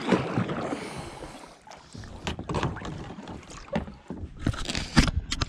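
Kayak paddle splashing in the water, with scattered knocks against the kayak's hull and wind on the microphone.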